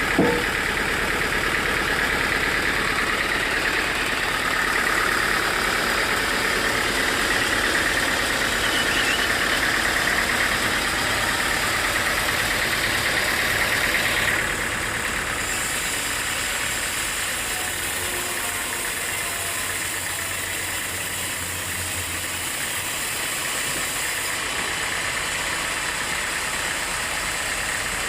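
Sawmill machinery running steadily, a continuous mechanical noise with a strong high band. About halfway it abruptly drops to a slightly quieter, steadier running sound.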